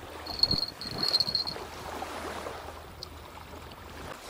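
An insect's high, thin trill in two short bursts within the first second and a half, over a faint steady wash of water and wind.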